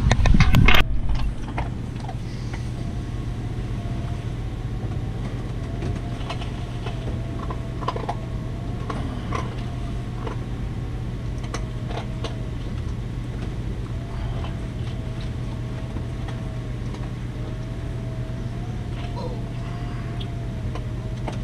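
A steady mechanical hum with a faint wavering tone above it, and scattered light clinks of forks on plates. A brief clatter comes right at the start.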